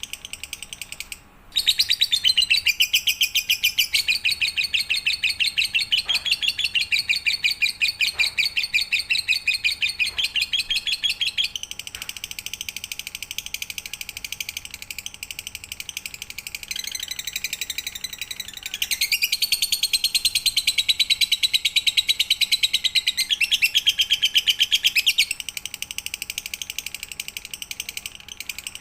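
Lovebird chattering song: a long, very fast, unbroken trill of high chirps, breaking briefly about a second in and swelling louder for two long stretches.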